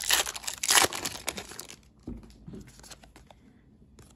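Foil wrapper of a Pokémon trading-card booster pack crinkling and tearing open for the first couple of seconds, then quieter light rustles and clicks as the cards are handled.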